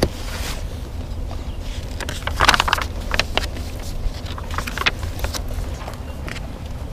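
Pages of a paperback picture book being handled and turned, with short paper rustles and crackles, the busiest a little past the middle, over a steady low rumble.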